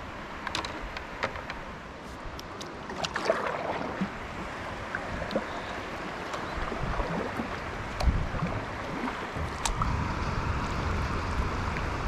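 River water rushing and lapping around a kayak, growing fuller partway through, with a few sharp clicks and knocks. A low rumble of wind on the microphone builds in the last few seconds.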